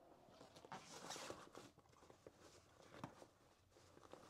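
Faint handling noise: soft rustles and a few light clicks as small gear is packed into a bag.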